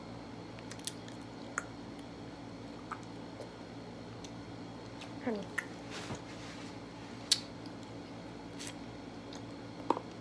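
Scattered small clicks and taps over a steady low hum, with a brief falling squeak about five seconds in.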